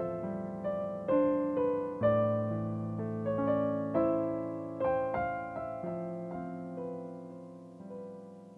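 Digital piano played slowly: sustained chords under a single-note melody, each struck note ringing and decaying, the last chord fading away near the end.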